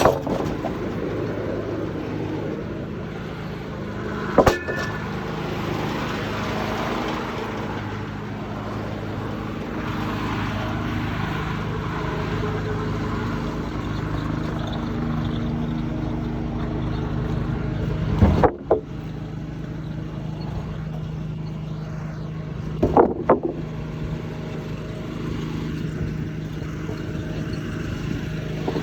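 Detroit 6-71 two-stroke inline-six diesel running steadily to power the sawmill, heard muffled from inside an overall pocket. Three loud clattering knocks break in: one about four seconds in, one just past the middle and one a few seconds later.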